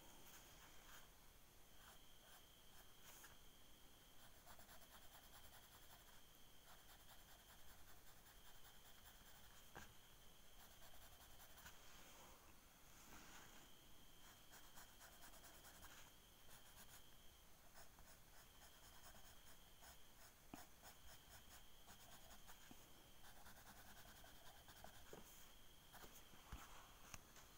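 Graphite pencil scratching on drawing paper in quick, short hatching strokes, faint and close. A faint high steady whine comes and goes in the background.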